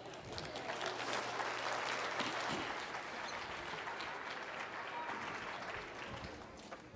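Audience applauding, building within the first second and dying away near the end.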